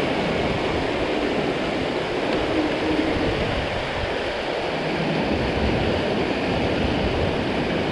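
Water pouring over a low river weir: a steady, even rushing of falling water.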